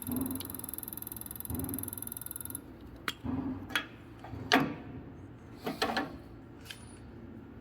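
Common-rail injector test bench running with a steady high hiss, then switched off about two and a half seconds in. A handful of sharp clicks and knocks follow as the injector and its fittings are handled on the bench.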